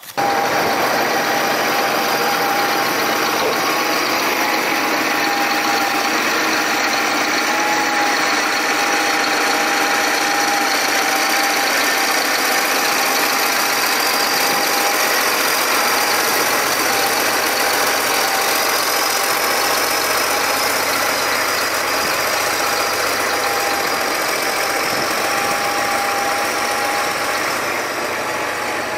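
A large New Holland tractor's diesel engine running steadily, with a thin, steady whine over it.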